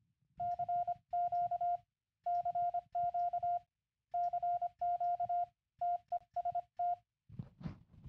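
Morse code from a Raspberry Pi code practice oscillator: a steady sine-shaped tone from its speaker, keyed on and off in quick dots and dashes in four runs with short pauses between. The keying arrives remotely as MIDI note-on and note-off packets over Wi-Fi.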